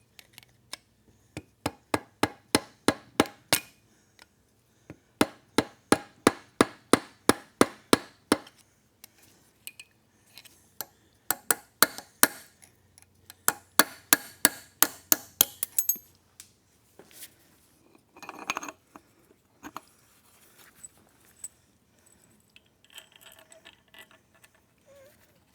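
Hammer tapping on metal engine parts in three runs of quick, sharp blows, about four a second, with a short rattle about three-quarters of the way through and a few faint clinks near the end.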